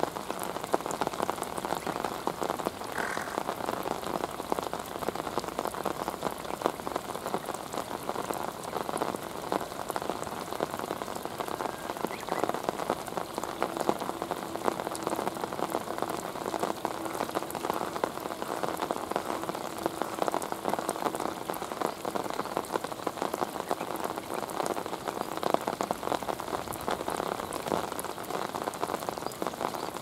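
Steady rain falling, a dense patter of drops.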